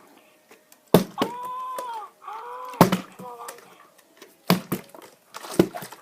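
About four sharp knocks against something hard, the loudest about a second in and near three seconds. Between the first two, a child's voice makes two wordless sounds whose pitch rises and falls.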